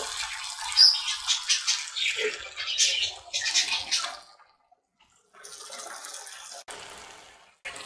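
Thick masala sizzling and crackling in hot oil in a pan as fried kingfish steaks are laid into it. The sizzle breaks off for about half a second midway, then carries on softer and steadier, with one sharp click near the end.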